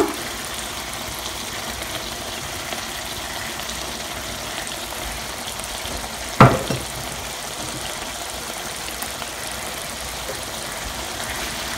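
Thick chicken curry sizzling steadily in an open frying pan, with a single sharp knock about six and a half seconds in.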